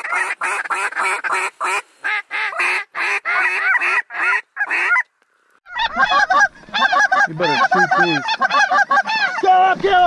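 A flock of snow geese calling: a dense chorus of rapid, high, arched honks. It breaks off completely for about half a second just after five seconds in, then resumes with some lower honks mixed in near the end.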